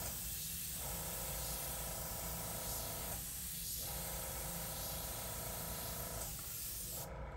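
Airbrush spraying paint in short dagger strokes: a steady hiss of air and paint that dips briefly three times and stops near the end.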